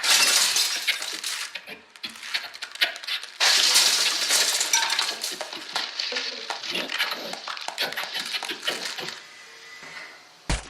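A dense, loud run of clattering and clinking, full of sharp clicks. It starts abruptly, eases off briefly, surges again about three and a half seconds in and dies away near the end, with one sharp click just before the close.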